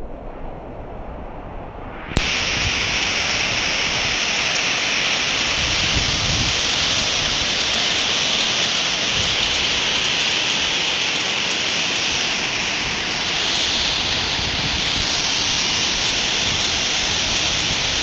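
Flash-flooded wadi rushing: a loud, steady rush of floodwater that cuts in suddenly about two seconds in, after a quieter, muffled stretch.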